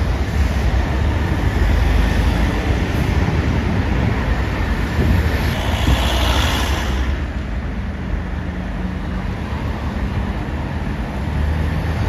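Road traffic at a busy junction: buses and cars going past with a steady low rumble. About six seconds in, a hiss swells and fades within a second or so as a car passes close by.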